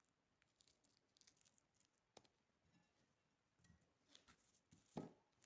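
Near silence with faint kitchen handling sounds as dates are added to the mixture: scattered small clicks and light rustles, and one short soft knock about five seconds in.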